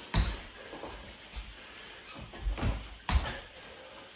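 Thuds of a person's hands and feet landing on a wooden floor during burpees: two sharp knocks about three seconds apart, with softer thumps between.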